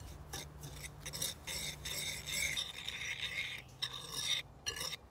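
Metal wire whisk stirring a dry breadcrumb mixture in a bowl: a scratchy rasp of crumbs and wires rubbing against the bowl, in repeated strokes.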